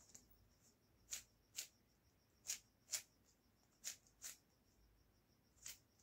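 Rubik's cube faces being turned: seven short, sharp plastic clicks, mostly in pairs about half a second apart.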